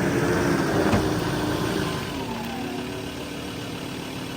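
Vehicle engine running, with a short knock about a second in. The engine's pitch drops about two seconds in and then holds steady at the lower note.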